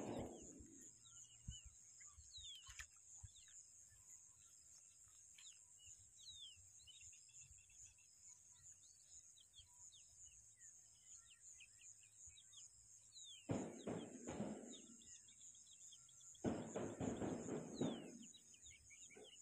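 Small birds chirping over a lakeshore in many short, quick falling chirps, over a steady high hiss. Two louder bursts of noise, each about a second and a half long, come near the end.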